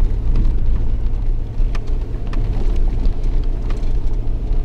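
Car driving over a rutted grass field track, heard from inside the cabin: a steady low rumble of engine and tyres with scattered small knocks and rattles.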